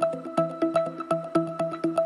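Background electronic music: short plucked synth notes in a quick repeating melody over an even beat of about four strokes a second.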